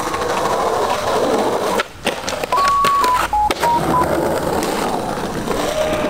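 A short run of electronic beeps, five or six notes stepping down and back up in pitch, lasting about a second and a half, with a few clicks among them.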